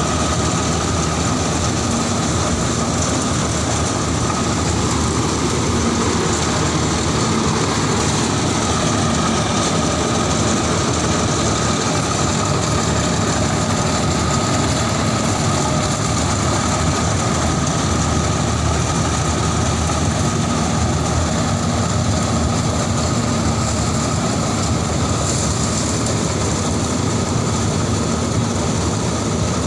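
Corn harvesting machine running steadily, a continuous engine drone with steady whining tones on top.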